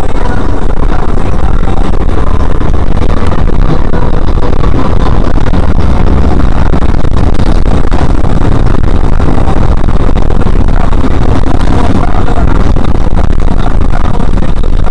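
Ambulance driving: a loud, steady rumble of engine and road noise heard from inside the cab, recorded so hot that it is overloaded.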